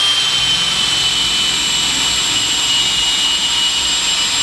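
Makita 18V brushless cordless drill running steadily as its bit bores through quarter-inch aluminium plate, with a high whine that drops slightly in pitch over the seconds.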